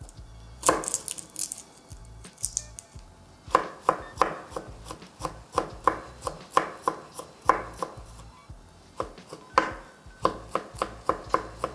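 Chef's knife chopping garlic cloves on a wooden cutting board: sharp taps of the blade on the board in runs of two or three a second, with a short pause before a quicker run near the end.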